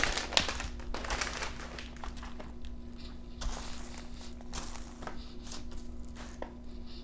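Small resealable plastic bags of diamond-painting drills crinkling and rustling as they are picked up and slid across the canvas, in irregular spells with short crackles.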